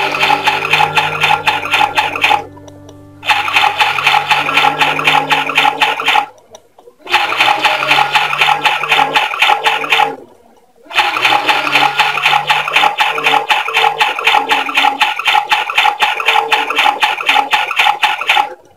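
Electronic sound effect from the Play Go 'My First Washing Machine' toy, played through its small speaker: a watery, churning washing sound over a simple tune. It comes in four stretches, each broken off by a short pause.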